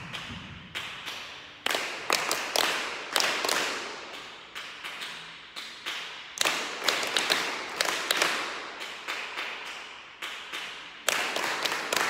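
Hands clapping: runs of sharp claps, several to the second and partly overlapping as if from more than one person, with short pauses between runs and a little room echo.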